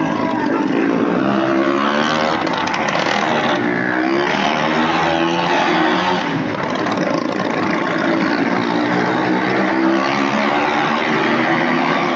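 Stunt vehicle engines revving inside a wooden well-of-death drum, the pitch rising and falling unevenly.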